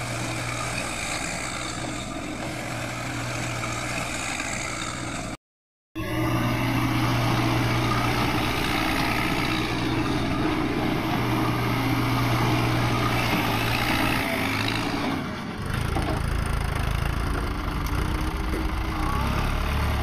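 Diesel engine of a Cat backhoe loader running steadily. The sound cuts out for about half a second around five seconds in and comes back louder. About fifteen seconds in it changes to a deeper engine note.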